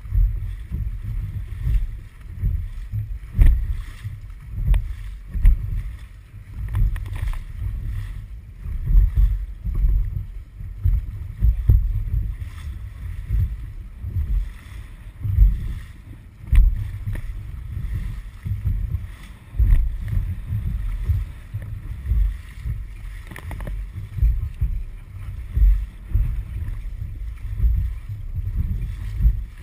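Dragon boat under paddle: the crew's paddles stroke through the water in rhythm and water washes along the hull, heard as a low, pulsing rumble about once a second with a few sharp knocks.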